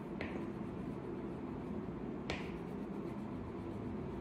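Wax crayon rubbing back and forth on paper as a picture is coloured in, with two sharp clicks about two seconds apart.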